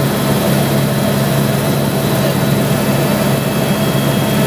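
Helicopter in flight, heard from inside the cabin: a steady, loud drone of engine and rotor noise with a constant low hum.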